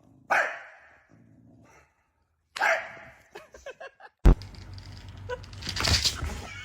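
A dog barking, two single loud barks about two seconds apart. About four seconds in, a sudden knock is followed by a busier mix of rustling and handling noise.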